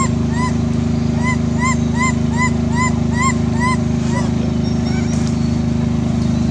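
A steady low hum, like a motor running, under a run of short, evenly spaced chirping calls, about two to three a second, that stop about three and a half seconds in.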